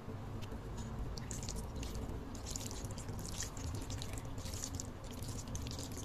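Wooden spatula stirring and tossing sauce-coated fettuccine in a frying pan: irregular wet squishing with many small sticky clicks and crackles.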